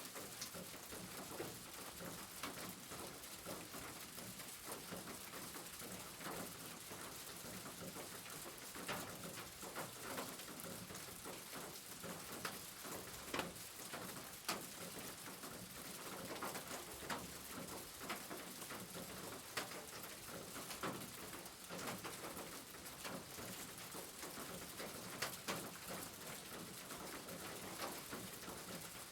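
Steady rain falling on a roof: an even hiss of rain with many separate drops tapping sharply at irregular moments.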